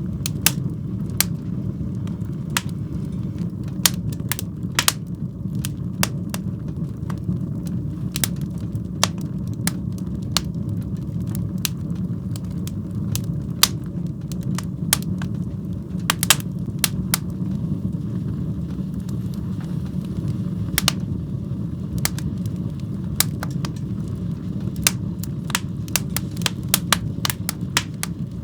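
Fire burning in a fireplace: irregular sharp pops and crackles over a steady low rumble.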